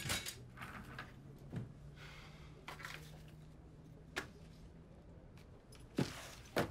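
Quiet room tone with a few soft knocks and taps from small objects handled on a desk, the sharpest two near the end, under a low steady hum that fades out after about five seconds.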